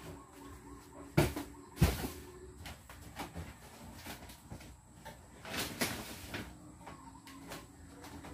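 Two sharp bangs about a second in, then lighter knocks and rustling of things being moved and set down while a storeroom is cleaned out.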